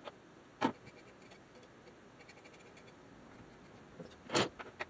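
Small handling knocks and scrapes on a workbench as a spray can and a metal record-changer chassis plate are handled: two light clicks at the start, then a sharp knock about four and a half seconds in with a few smaller clicks after it.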